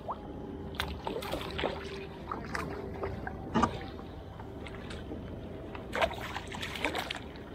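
Water splashing and sloshing as a hooked grouper thrashes at the surface beside a kayak and is scooped into a landing net, with scattered sharp clicks and knocks. A faint steady hum runs underneath through the first half.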